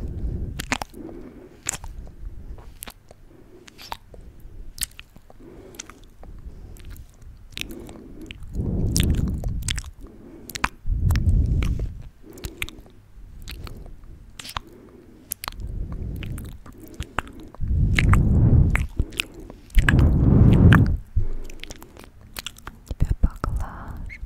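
Wet mouth sounds right at the microphone: quick clicks and smacks of the lips and tongue, scattered throughout. In the second half, several longer, low rushing sounds are louder than the clicks.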